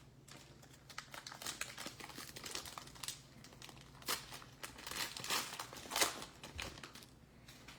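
Crinkly plastic wrapper of a trading-card pack being handled and torn open: a run of quick, irregular crackles, loudest about six seconds in.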